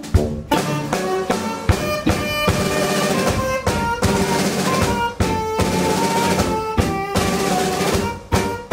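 A small instrumental band playing live: tenor saxophone, electric guitar, tuba and drum kit. Busy snare and bass-drum strokes run under held horn notes.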